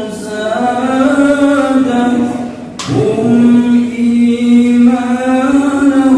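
A group of voices singing together in long held notes, with a brief break and a click nearly three seconds in before the singing resumes.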